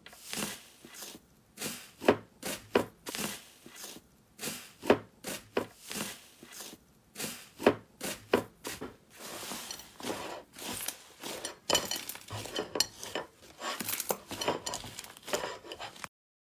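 Gold-leaf foil crinkling and crackling over puffy slime as fingers press and break into it, with the slime squishing and popping; separate crackles at first, then denser, stopping suddenly near the end.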